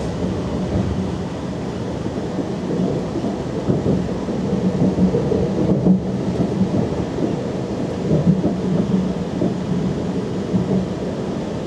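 Steady low rumble of a Talent 2 electric regional train running at speed, heard inside the passenger cabin: wheels running on the rails with a faint motor hum and a few small jolts.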